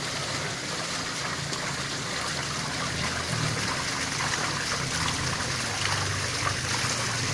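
Water falling steadily from an artificial rock-garden waterfall, a continuous splashing trickle.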